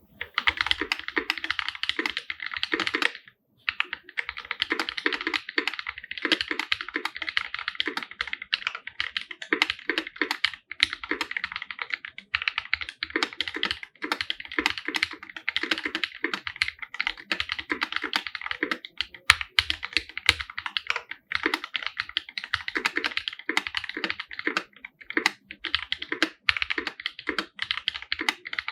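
Fast, continuous typing on a Lynx50 aluminium-case 50% mechanical keyboard with original Holy Panda tactile switches and GMK Laser keycaps: a dense run of key clacks with a brief pause about three seconds in.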